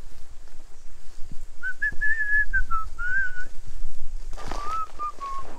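A person whistling a short tune, one clear note line stepping up and down, starting about one and a half seconds in, pausing briefly and picking up again at a lower pitch near the end. Low knocks and a short burst of rustling about four and a half seconds in lie underneath.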